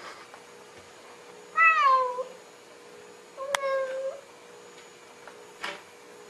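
A domestic cat meowing twice: the first call falls in pitch, the second is flatter and steadier and begins with a sharp click.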